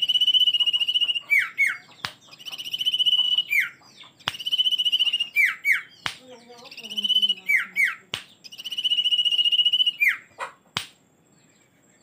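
Common iora (Aegithina tiphia) singing the same phrase over and over. Each phrase is a long trilled whistle held at one pitch for about a second, ending in two quick falling notes. The phrases come about every two seconds, five times, with a few sharp clicks between them and a pause near the end.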